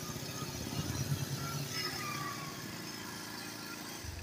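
Motorcycle engine idling, a steady low pulse that eases off a little after about a second and a half.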